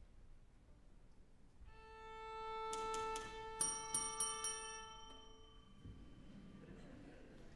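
A violin holds a single note near A, swelling and then fading over about four seconds. Around the middle come several sharp clicks and a few short, bright ringing strokes.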